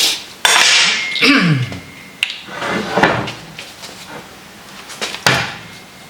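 Metal parts clattering and scraping in irregular strokes while a steel vise part is cleaned, with a sharp clink a little after five seconds.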